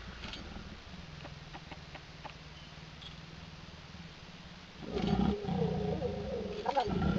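Leopards growling during mating: a loud growl starts about five seconds in and lasts about two seconds, then after a short break a second growl comes near the end.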